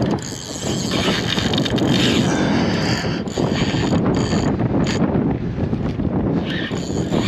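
Fishing reel working against a hooked white sturgeon: a fast mechanical whirring and clicking of reel gears and ratchet, with a few brief breaks.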